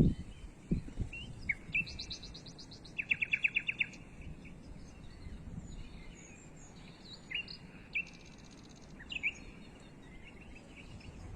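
Small songbirds chirping, with a quick trill of about eight notes about three seconds in and another near eight seconds, over a low wind rumble.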